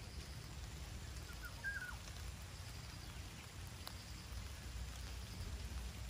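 Rain falling steadily, with strong wind rumbling on the microphone. One short chirp comes about a second and a half in.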